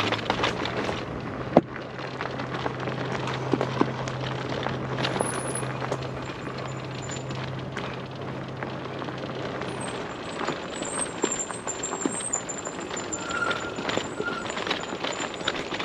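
E-bike rolling along a dirt trail, its tyres crackling and crunching over the ground, with a steady low hum that stops about ten seconds in.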